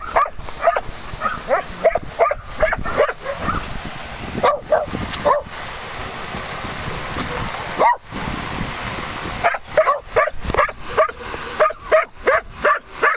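Dogs barking and yipping in rough play: runs of short, sharp calls, with a pause of a few seconds in the middle.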